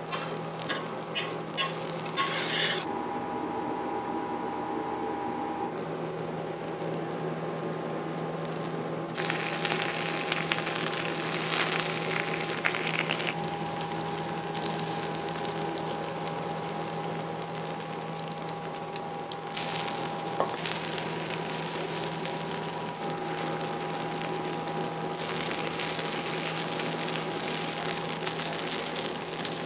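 Okonomiyaki with fried noodles sizzling on a hot iron teppan griddle, with a few metal spatula taps and scrapes in the first couple of seconds. A steady low hum runs underneath.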